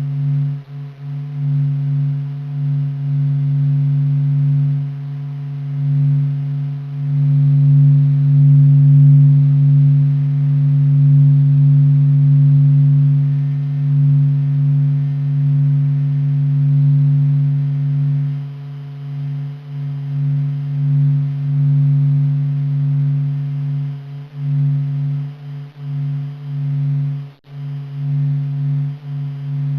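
Sonification of the Sun's vibrations, measured by NASA's SOHO satellite and converted into sound: a low, steady drone of several held tones that swells and dips in loudness. It turns choppier in the second half and briefly drops out near the end.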